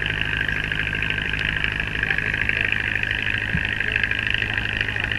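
Shimano Beastmaster electric fishing reel whirring steadily as its motor winds in a hooked fish under load, over a steady low drone from the boat's engine.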